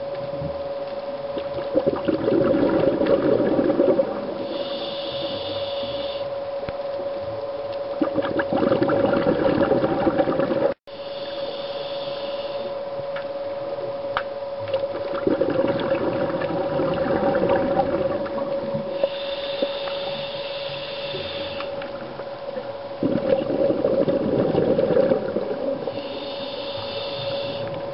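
Scuba diver breathing underwater through a regulator: four long bubbling exhalations, about one every seven seconds, each followed by a shorter hissing inhalation. A steady hum runs underneath throughout.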